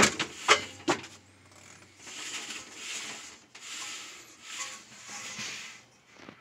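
A hand handling a Dansk Kobenstyle enamelled steel paella pan: three sharp knocks in the first second, then about five rubbing strokes over the enamel.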